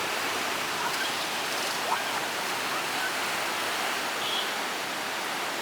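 Monsoon floodwater rushing: a steady, unbroken roar of fast-flowing water.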